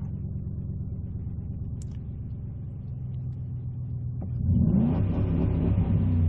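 1997 Ford Taurus SHO's 3.4-litre V8 idling steadily, running now that a new OEM crankshaft position sensor has cured its no-start. About four and a half seconds in, it is revved up and held at a higher, louder speed.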